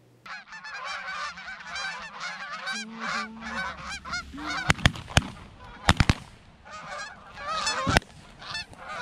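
A flock of Canada geese honking overhead, many overlapping calls, then a volley of shotgun shots about halfway through, with one more near the end.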